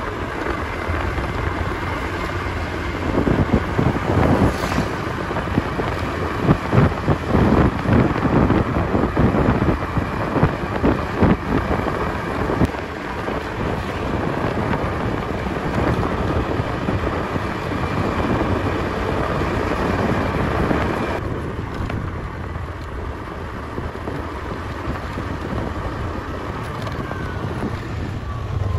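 Vehicle travelling along a road: steady engine and road noise with gusts of wind buffeting the microphone, the gusts heaviest in the first half.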